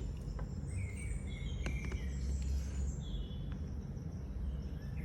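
Birds chirping in the background over a steady low hum, with a few faint light clicks.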